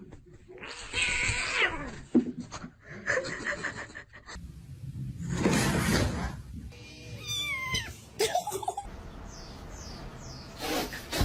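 Domestic cats meowing: several separate drawn-out calls, with pitch sliding up and down, and a short noisy rush about halfway through.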